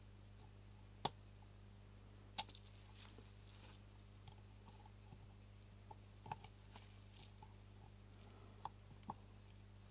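Small parts and tools clicking as a lens shutter assembly is handled. Two sharp clicks come about one and two and a half seconds in, then a few fainter ticks, over a low steady hum.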